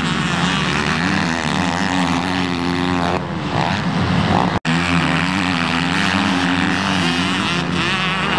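Motocross dirt bike engines running and revving on the track, their pitch rising and falling as the riders work the throttle. The sound cuts out for an instant a little past halfway and then carries on.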